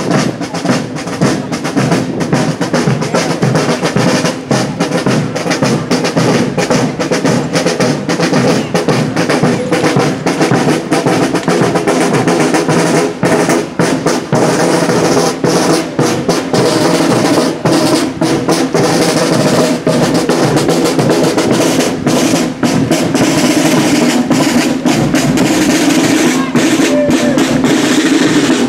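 Parade marching drums playing: snare drum rolls over bass drum beats, with steady sustained notes from other instruments underneath.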